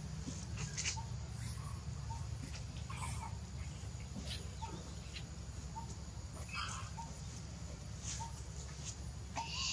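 Forest ambience: a short, high chirp repeats about once a second, with scattered faint clicks and rustles over a steady low rumble.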